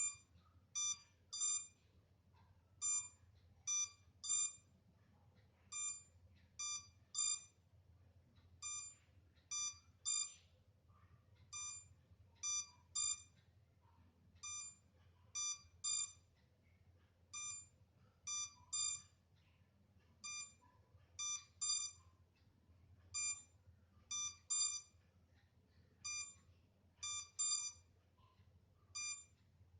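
MJX Bugs 3 quadcopter's warning buzzer beeping in groups of three short high beeps, the groups repeating about every three seconds. This is the alarm the drone gives after being left some minutes without a connection to its transmitter, meant to help find a lost drone.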